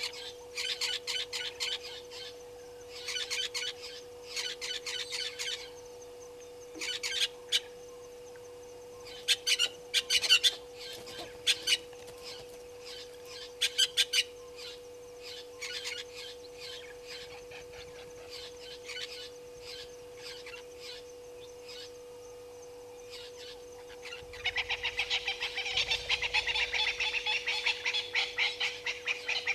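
African wild dogs (painted dogs) twittering: short runs of rapid, high-pitched chirps, then a denser, longer run near the end.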